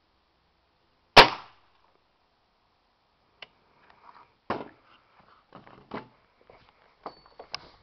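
A Crosman Phantom spring-piston air rifle fires a single sharp crack about a second in. Scattered quieter knocks and thumps follow, some of them footsteps on a wooden deck.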